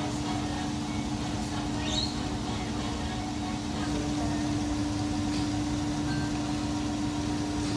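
A steady low mechanical hum at one constant pitch, with a rumble beneath it.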